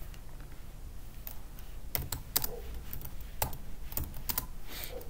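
Computer keyboard being typed on: a dozen or so separate keystrokes at an uneven pace.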